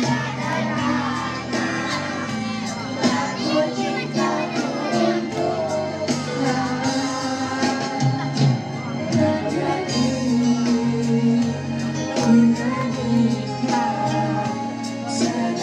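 Two boys singing a song into microphones over musical accompaniment with a steady beat, amplified through a sound system.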